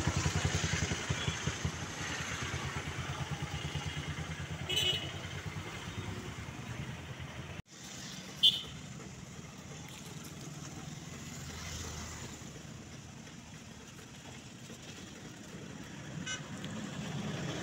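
Roadside traffic: an engine, likely a motorcycle's, idles nearby with a steady low throb, with short horn toots. The engine sound breaks off suddenly a little before halfway, and traffic noise carries on, with a loud horn beep about a second later and more toots near the end.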